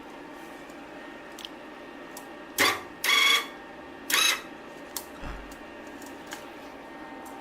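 A 125-volt wire-feed welder striking an arc in three short bursts, each under half a second, with a low thump between them and a few light clicks.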